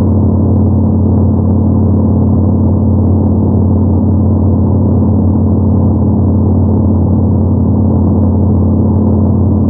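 Yamaha MT-01's air-cooled 48° V-twin running at a steady cruise, a deep, even exhaust drone that holds one pitch throughout.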